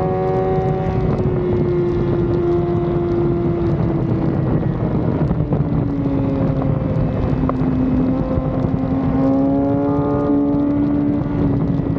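Sport bike's engine running at high revs under way on a racetrack, with heavy wind rushing over the microphone. The engine note falls slowly over the first six seconds or so, then holds and rises slightly before levelling off.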